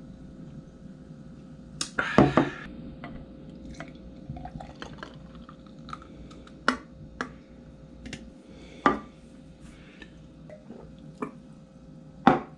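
Eating and drinking at a table: chopsticks, a drinking glass and a plastic bento tray knocking and clicking now and then, with soft chewing. A short, louder noisy burst comes about two seconds in, over a faint steady hum.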